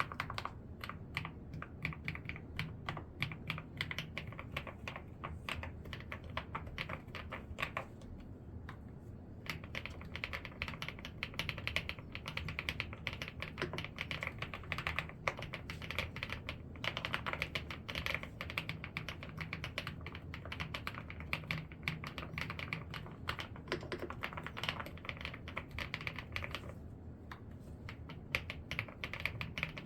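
Typing on an ABKO pebble-style mechanical keyboard with round keycaps and Speed Silver linear switches: fast, continuous key clacks, with two short pauses, one about eight seconds in and another near the end.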